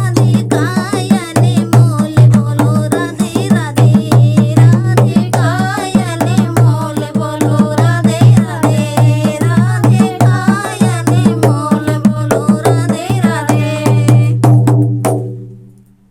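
Devotional bhajan music: a melody over quick, even hand-drum strokes, fading out about fifteen seconds in.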